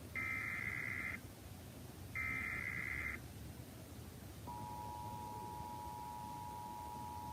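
Emergency Alert System SAME header: two one-second bursts of buzzy data tones a second apart, the end of the three-burst header. About four and a half seconds in, the steady two-tone EAS attention signal (853 and 960 Hz played together) starts and holds.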